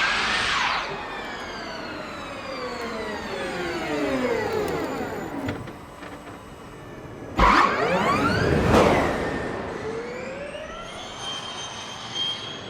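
Formula E race cars' electric drivetrains whining past at speed: a high-pitched whine that sweeps up and then falls in pitch as a car passes about the start, and again, loudest, around eight seconds in, with a rising whine of a car accelerating near the end.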